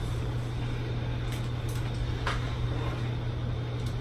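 A steady low hum, with a few faint light ticks in the first half.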